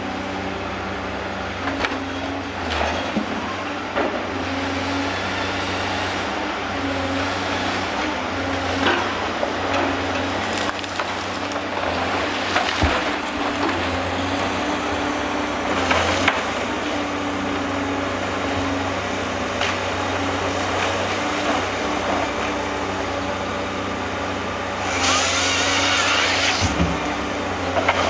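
Forestry machine's diesel engine running under load with its crane hydraulics whining on and off, with scattered knocks of logs. Near the end a harvester head's chain saw cuts through a log with a loud buzz.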